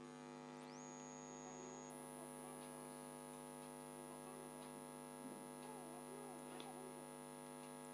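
Faint steady electrical mains hum with a stack of even overtones, and no clear cooking sound above it.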